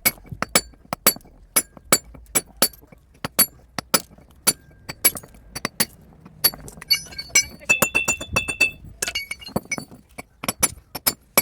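Hammer blows dressing broken granite, chipping the stone into shape: a string of sharp, clinking strikes at irregular intervals, about two or three a second, some of them ringing briefly.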